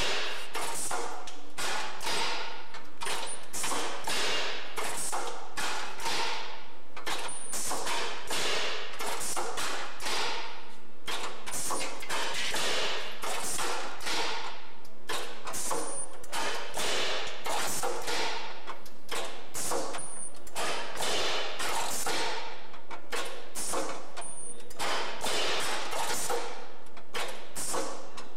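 Continuous irregular knocking and clattering of a mechanism, about two or three knocks a second.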